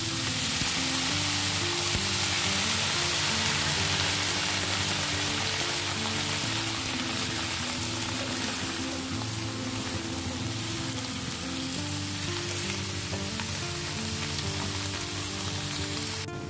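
Green beans sizzling in a hot wok with a little added water as a spatula stirs and tosses them; the sizzle cuts off suddenly near the end. Background music plays underneath.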